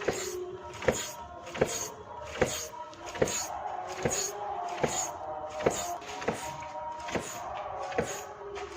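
Honda SP125 rear shock absorber knocking each time the rear of the motorcycle is pressed down and released, a sharp knock about every 0.8 s with a creak between. The noise comes from a faulty rear shock absorber.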